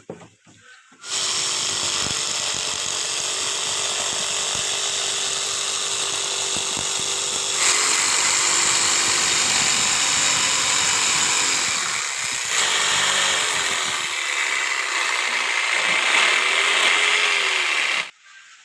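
Electric power tool motor running for about seventeen seconds, starting about a second in and cutting off suddenly near the end. It grows louder about eight seconds in, and its pitch dips and recovers a few times as it is loaded.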